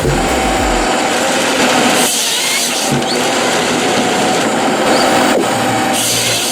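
Machinery running steadily with a constant whine. Background music with a low bass line is heard in the first second.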